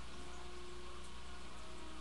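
Steady background hiss with a low hum and faint steady tones: room tone between phrases of speech.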